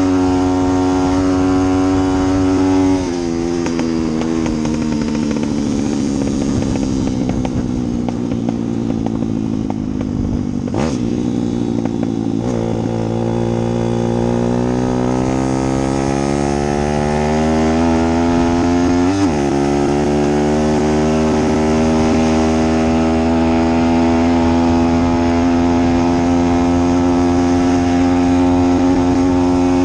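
A motor running with a steady, many-toned hum. Its pitch drops about three seconds in and keeps sliding down for several seconds, then climbs back up and holds steady.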